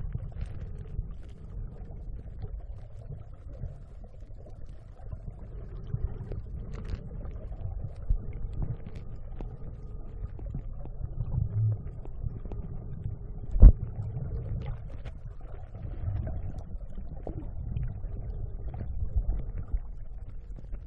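Muffled low rumble and water movement picked up by a phone filming underwater, with scattered small clicks and one sharp knock a little past the middle. A faint steady whine sits above the rumble through the middle part.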